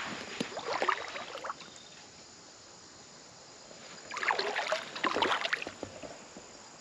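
Crackling, crunching rustle of dry leaves and brush in two bursts, one in the first second and a half and another from about four to six seconds in.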